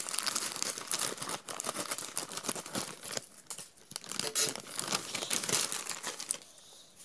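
Plastic courier pouch crinkling and tearing as it is cut open with scissors, with irregular crackles and small clicks, and the cardboard box inside is pulled out of it.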